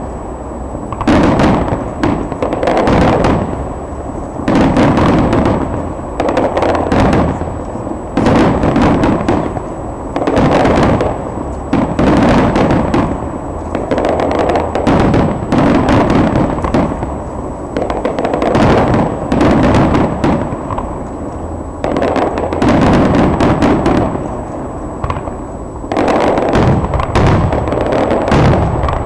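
Fireworks display: aerial shells bursting in quick succession, sharp bangs every second or so over continuous lower noise from further bursts.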